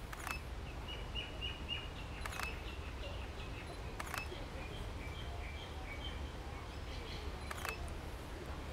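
Sony A7RII camera shutter firing four times, a second or more apart, as single frames are taken. Faint bird chirps and a low steady hum sit behind the clicks.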